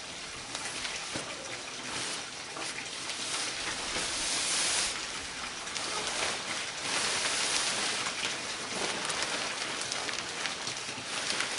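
Heavy black plastic sheeting rustling and crackling as it is pulled and spread over a wooden bed frame, louder about four to five seconds in and again around seven to eight seconds in.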